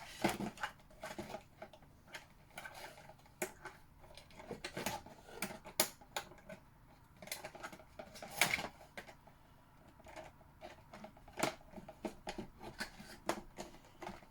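Scissors cutting and working at plastic toy packaging: irregular snips, clicks and crinkles, with a few sharper clicks standing out.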